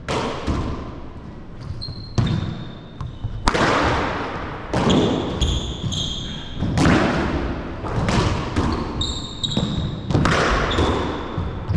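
Paddleball rally in an echoing indoor court: repeated sharp cracks of the rubber ball off paddles and walls, with short high squeaks between shots.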